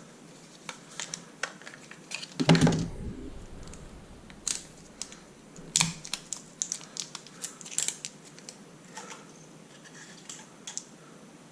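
Hands handling a boxed gadget and its packaging: irregular light clicks and taps, with one louder knock and rustle about two and a half seconds in.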